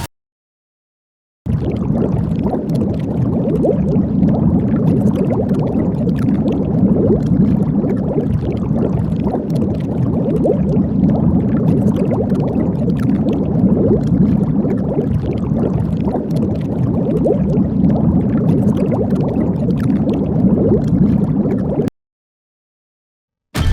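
Gungan bubble door sound effect playing as a loop: a steady, dense watery texture made of many tiny pops. It starts after about a second and a half of silence and stops about two seconds before the end.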